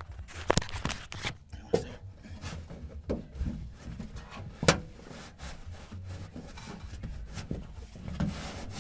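Irregular rubbing and scraping with a few sharp knocks: a deflated basketball being pushed and worked into the narrow gap behind a dent in a truck bed, with hands knocking against the panels.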